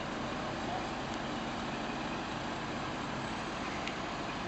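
Steady hiss of grit blasting on a boat hull, with a heavy vehicle engine idling underneath.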